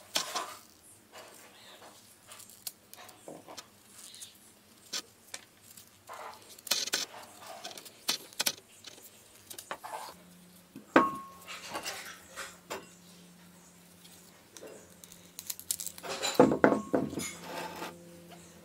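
Kitchen knife cutting carrot and ginger on a wooden tabletop: scattered sharp clicks and taps of the blade. Near the end a quick run of louder knocks as the pieces are dropped into a glass bowl.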